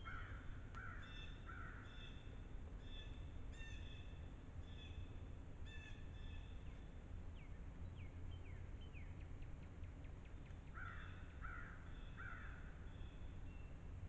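A crow caws three times, then three more times about eleven seconds in, while small birds sing thin high notes throughout, with a run of quick falling notes that speeds up near the middle. Under it all is a steady low rumble.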